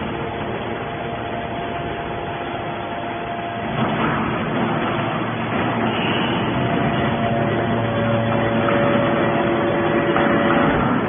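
Hydraulic scrap-metal baler running: a steady machine hum with several held whining tones, getting louder about four seconds in.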